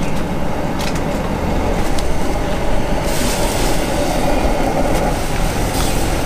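Gas burner under a wok running steadily: an even, deep rushing noise. About three seconds in a brighter hiss joins it, with a few faint ticks.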